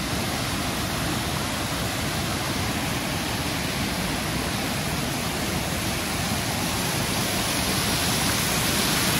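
A fast, rain-swollen mountain stream rushing and splashing over boulders, heard close up as a steady rush of white water that grows a little louder near the end.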